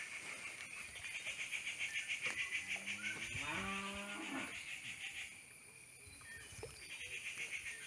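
A long, low animal call lasting about two seconds, a little before the middle, over a high, fast-pulsing buzz that stops about two-thirds of the way through.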